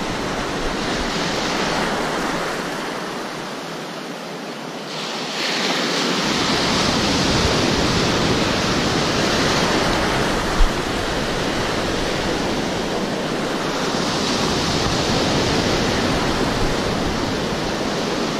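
Surf breaking and foam washing through shallow water in a steady rush that eases about three seconds in, then swells again as a wave surges in about five seconds in and again later. A single brief knock about ten seconds in.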